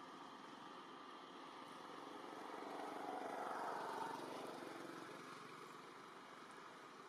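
Faint engine of a passing motor vehicle, swelling to its loudest about three to four seconds in and then fading, over a steady outdoor hiss.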